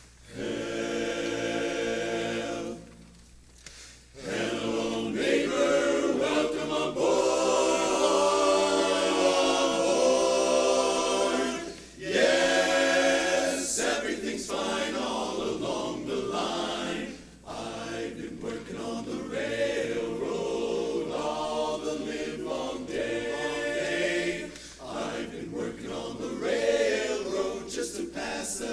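A cappella barbershop chorus singing in close harmony, phrase by phrase with short breaks between phrases.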